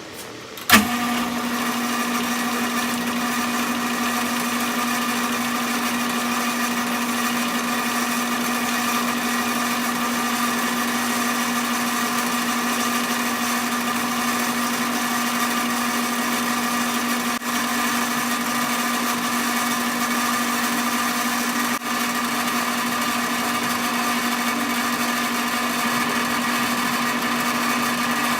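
Sidney metal lathe running steadily under power, a steady motor and gear whine with a low hum. It starts abruptly with a click just under a second in.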